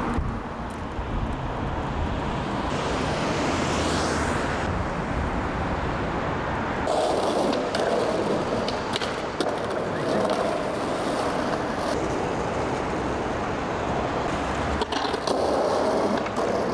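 Skateboard rolling over paving tiles with a steady wheel rumble, broken by several sharp clacks of the board popping and landing, about halfway through and again near the end.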